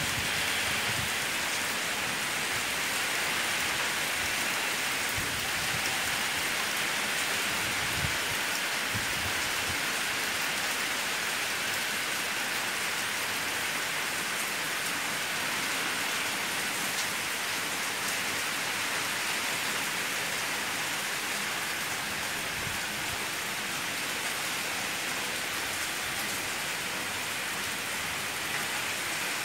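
Heavy hurricane rain pouring steadily, a constant hiss of rain, with a few low thumps about eight seconds in.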